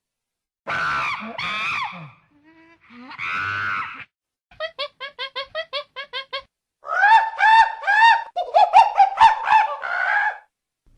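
Monkey calls in a string of separate clips: two harsh screeching calls in the first four seconds, then a quick run of short chirping notes, about seven a second. From about seven seconds in comes a louder string of rising-and-falling calls.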